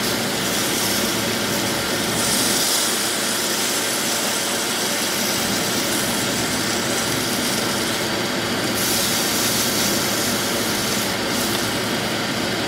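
Lamb chops searing in hot olive oil in a nonstick skillet: a steady, dense sizzle that swells brighter a couple of times as the chops are turned onto fresh sides.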